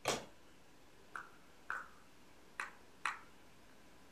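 Five short, light clinks of a spoon against a spice jar as half a spoonful of garlic powder is measured out; the first is the loudest, and some ring briefly.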